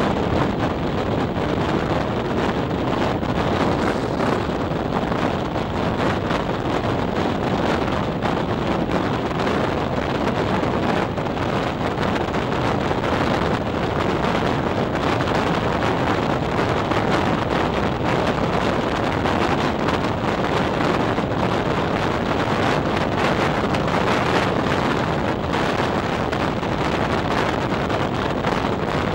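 Wind rushing over a microphone held out of a moving passenger train's window, mixed with the steady rumble of the train running along the track.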